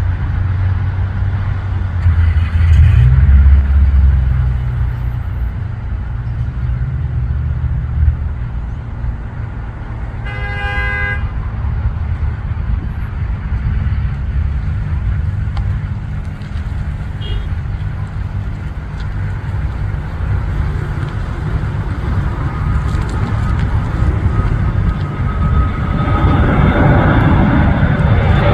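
Steady low rumble of road traffic, with a vehicle horn sounding once for about a second about ten seconds in. Near the end the noise of an aircraft taking off builds up, its pitch sweeping as it closes in.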